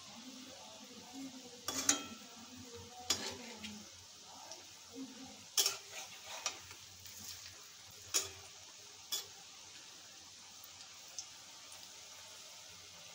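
Noodle pakoras deep-frying in a metal kadai of hot oil with a steady sizzle, while a metal spatula turning them clinks and scrapes against the pan about half a dozen times in the first nine seconds or so.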